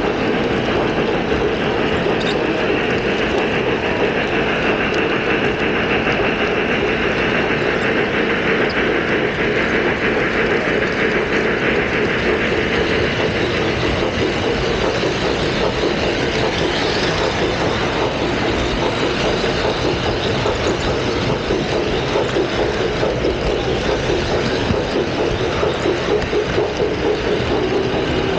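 Wheels of a model train car rolling along the track, heard close up from the camera car itself: a steady rolling rumble.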